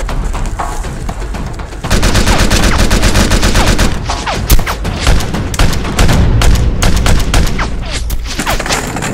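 Rapid gunfire sound effects, many shots a second, growing heavier and louder about two seconds in.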